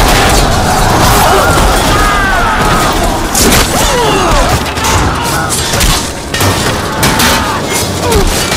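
Film battle din: a dense run of sharp clashes and thuds of shields and weapons, with men's shouts and yells over a low rumble.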